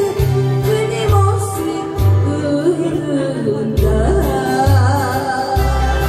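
Live performance of a Korean popular song: a woman singing into a microphone over acoustic guitar and an accompaniment with a steady bass line and beat.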